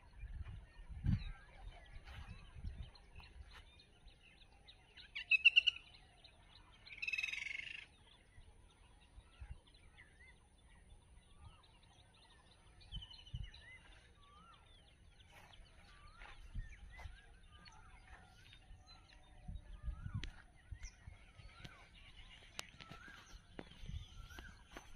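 Birds chirping and whistling, with two louder, harsher calls about five and seven seconds in.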